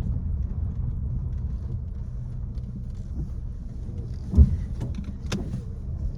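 Car running at low speed, heard from inside the cabin as a steady low rumble, with one loud thump about four seconds in and a sharp click a second later.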